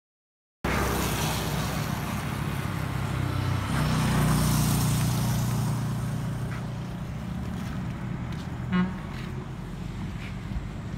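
Motorcycle riding along the road, its engine humming low under wind rushing over the microphone, cutting in after a brief silence and loudest about four seconds in. A short horn toot a couple of seconds before the end.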